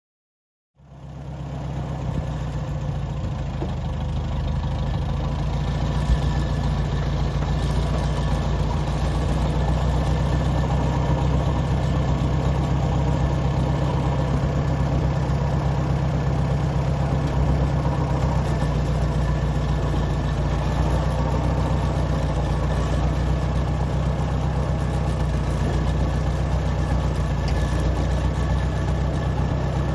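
1950 Farmall M's four-cylinder engine idling steadily, a deep even throb that comes in suddenly about a second in.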